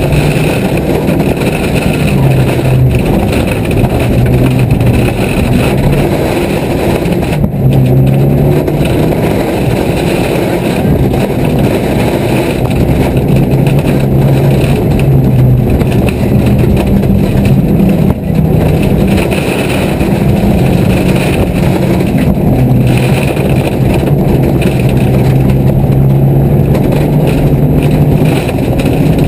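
Car engine heard from inside the cabin while driving, its note rising and falling through gear changes and throttle lifts, with road and tyre noise underneath. The sound dips briefly about seven seconds in and again around eighteen seconds in.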